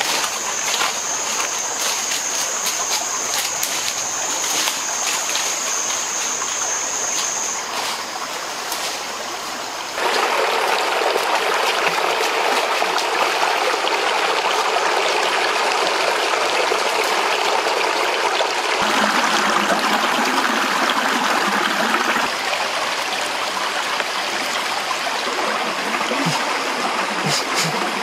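Running water of a stream, a steady rushing and trickling that jumps abruptly to a louder, fuller wash about ten seconds in. Over the first several seconds a steady high-pitched thin tone sits above the water.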